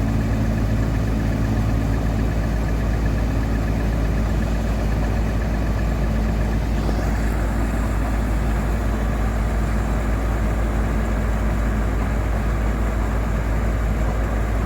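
Combine harvester's engine running steadily, a constant low drone.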